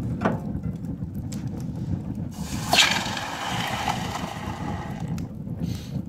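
Wood and coal fire burning in a firebox while metal tongs probe the coals for the hot blade, with a few sharp clinks and crackles over a steady low rumble. About three seconds in, a louder burst of rushing, hissing noise starts sharply and dies away after about two seconds.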